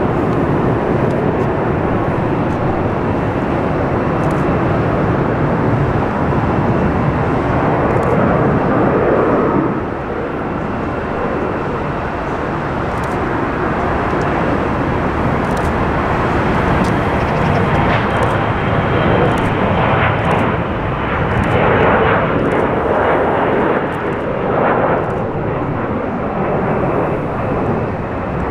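Airbus A380 jet engines running, a loud, steady rush of noise that eases slightly about a third of the way in, with a faint high whine joining about two-thirds of the way through.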